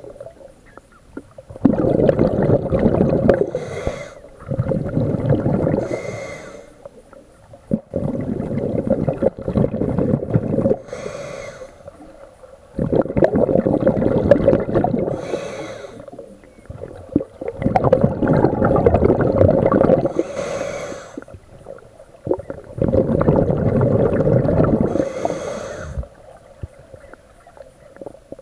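Scuba diver breathing through a regulator underwater: six rushes of exhaled bubbles, each lasting two to three seconds and coming about every five seconds, each with a short hiss from the regulator.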